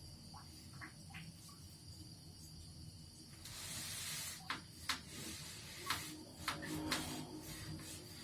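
A steady hiss comes in about three seconds in, over faint room tone, with five or six sharp clicks and knocks from handling sewing-machine parts during cleaning.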